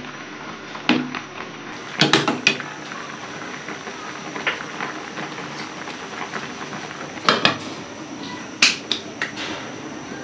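A handful of sharp clinks and knocks of a utensil against a cooking pot, over a steady hiss of food simmering in the pot.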